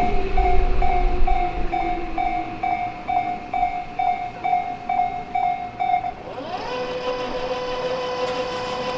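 Japanese level crossing's electronic warning bell ringing at a steady pace of almost three strokes a second, stopping about six seconds in. Under it a passing train's running sound fades with a falling pitch, and after the bell stops a steady whine rises in and holds.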